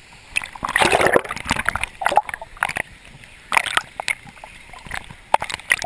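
Water splashing and sloshing against a camera held at the surface of a swimming pool below a waterfall, dipping in and out of the water. It comes in irregular bursts, the biggest about a second in.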